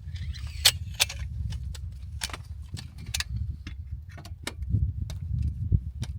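Camp gear being handled and set up, giving about a dozen irregular sharp clicks and clanks over a steady low rumble.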